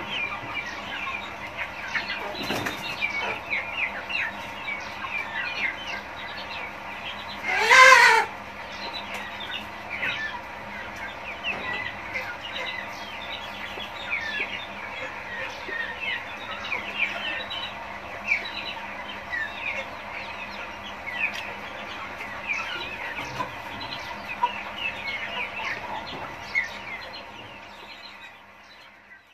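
A flock of young village chickens calling in a shed: many short, high calls overlapping throughout, with one louder call about eight seconds in. The sound fades out near the end.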